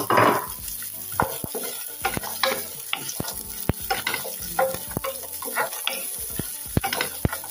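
Carrots and garlic sizzling in hot oil in a pan on high heat, stirred with a utensil that scrapes and clicks irregularly against the pan.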